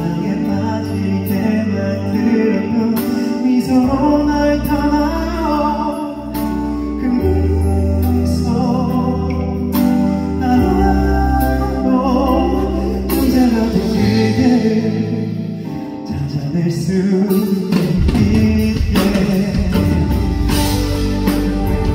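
A man singing live into a handheld microphone over a band's accompaniment of bass, guitar and drums.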